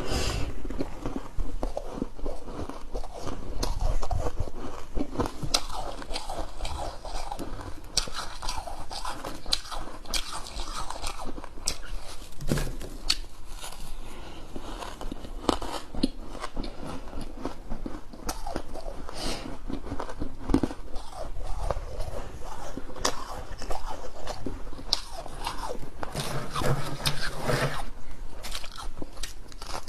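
A person biting and chewing hard frozen ice, with crisp crunches close to the microphone, coming irregularly every second or so.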